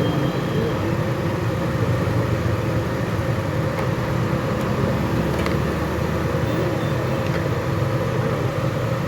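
A motor vehicle's engine idling steadily, with a few faint clicks.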